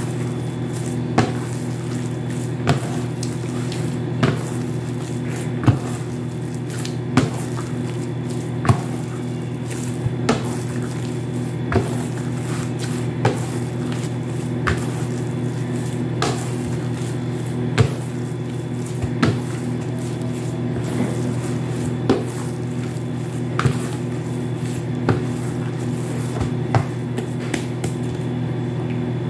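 Bread dough being kneaded by hand in a plastic basin, with a short thud about every second and a half as the dough is pushed into the bowl, over a steady low hum.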